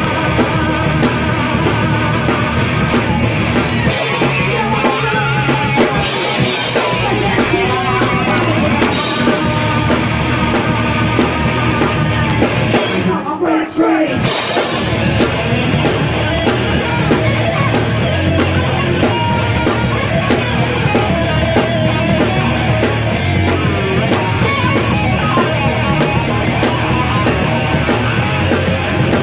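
Live rock band playing: electric guitars, bass guitar and drum kit. About halfway through, the high end drops away and the level dips for a moment before the full band comes back in.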